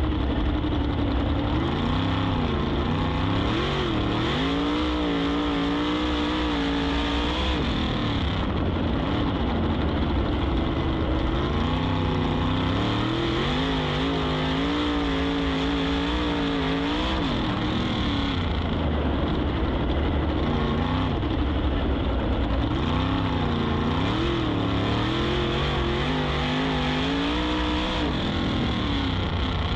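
A 410 sprint car's methanol-burning V8, heard from the cockpit mount, running on a dirt oval. Its note rises and falls in three long swells of several seconds each as the car goes down the straights and through the turns. Heavy wind rush on the microphone lies under it throughout.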